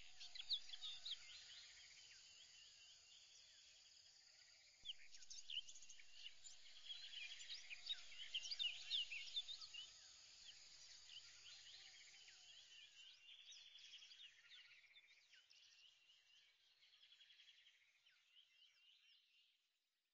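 Faint chirping of many small birds, a busy mix of short calls that grows louder about five seconds in and then fades out near the end.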